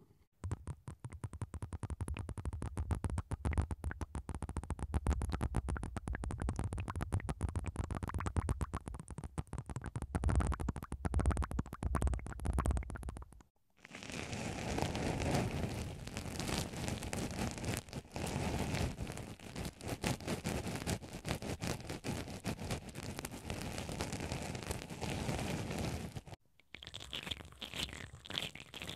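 Close-miked ASMR trigger sounds on a binaural dummy-ear microphone, in three runs. First, about thirteen seconds of rapid rubbing by wooden spoons on the microphones, with a strong low rumble. Then, after a short break, about twelve seconds of black cotton swabs scratching quickly in foam microphone covers, and near the end spiral brushes rubbing inside ball-shaped ears.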